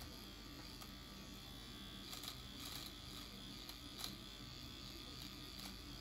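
Philips Series 1000 electric shaver trimming a moustache: a faint, steady buzz, with a few light clicks as it cuts.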